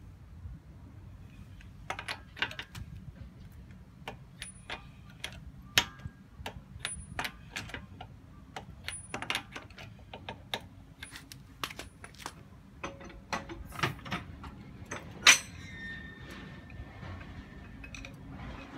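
Irregular metallic clicks and clinks of wheel lug nuts being spun onto their studs by hand with a loose socket. One click late on is much louder than the rest.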